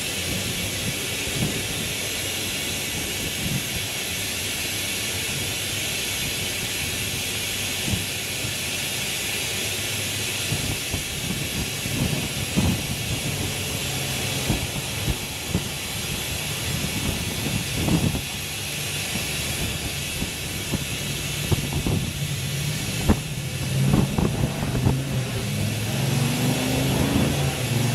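Steady hiss of a suction tool drawing engine oil out of the engine bay, with scattered light knocks of handling. A low hum joins in about halfway through.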